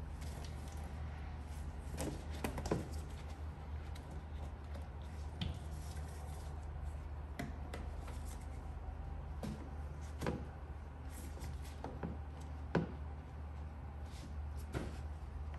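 Plastic air-intake piping and its rubber coupler being handled and pushed into place on an engine: scattered light knocks and clicks of plastic parts, the strongest about ten and thirteen seconds in, over a steady low hum.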